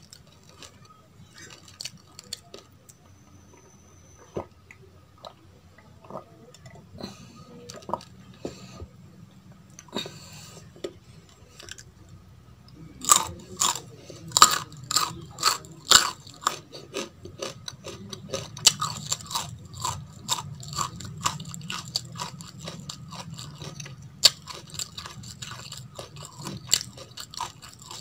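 Close-up chewing of uncooked basmati rice grains. Soft, scattered crunches at first, then about halfway through a mouthful is bitten into with loud, dense crackling crunches that keep going.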